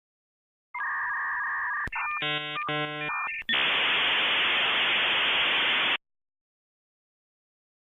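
Dial-up modem connecting: steady tones, then about a second and a half of buzzing, warbling tones, then a loud hiss that cuts off suddenly about six seconds in.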